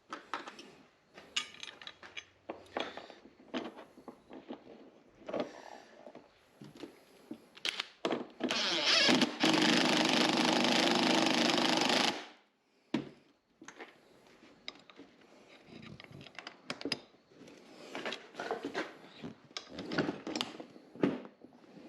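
Small clicks and knocks of parts being handled, then a power drill runs steadily for about three and a half seconds, driving a screw into the plastic seat, and stops abruptly.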